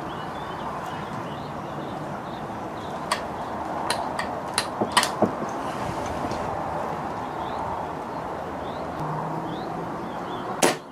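Steady wind rushing over the microphone, with a handful of sharp clicks a few seconds in and one louder click near the end.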